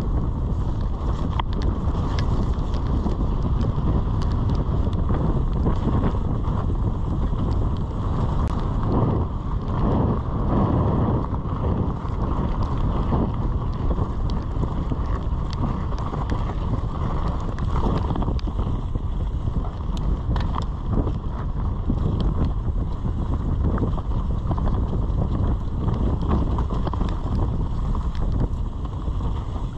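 Mountain bike descending fast over a dirt trail: a steady rush of wind on the microphone and tyre noise, with frequent clicks and rattles from the bike over bumps.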